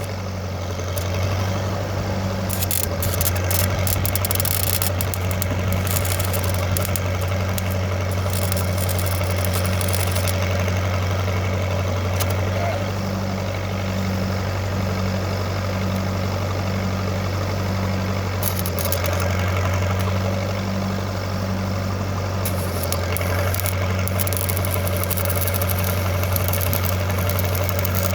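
Flathead gasoline engine of a Lincoln engine-driven arc welder running steadily, with a stick-welding arc crackling over it in stretches that start and stop.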